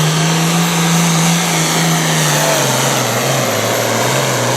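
Pro Farm pulling tractor's 466-cubic-inch diesel engine running flat out under load during a pull. The engine note holds steady at first, then sags and wavers lower about halfway through as the sled loads the tractor down.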